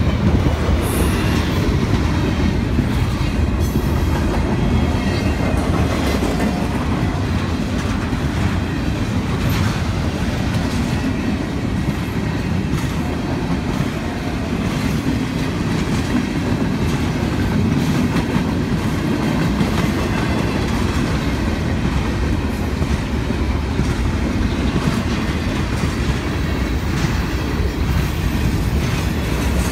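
Empty intermodal well cars of a freight train rolling steadily past: a continuous rumble with wheels clacking over the rail joints.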